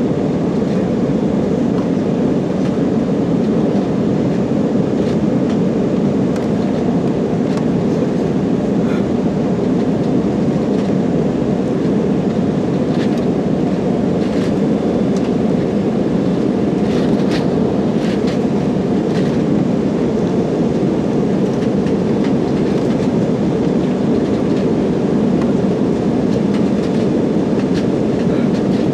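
Steady cabin noise of a jet airliner in flight, the engines and rushing air heard from inside the passenger cabin, with a few faint clicks.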